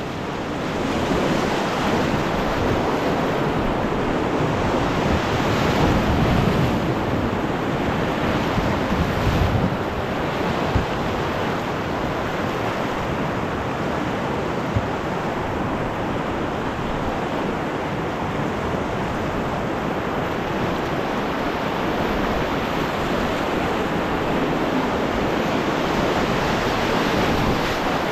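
Whitewater rushing steadily through river rapids, heard close up, with wind buffeting the microphone. There are two brief knocks near the middle.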